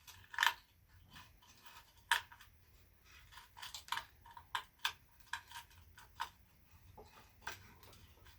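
Small metal parts being handled while a screw is put into a motorcycle's ignition coil bracket: irregular sharp clicks and taps, the loudest about half a second and two seconds in, then a quicker run of lighter ticks in the middle.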